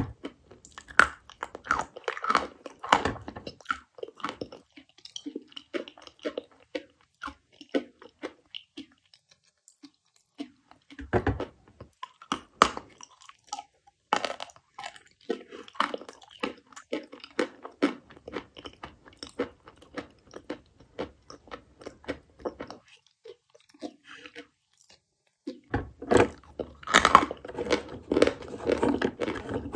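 Dry chalk being bitten and chewed, crunching loudly between the teeth. The crunches come in bunches with sparser gaps between, densest near the end.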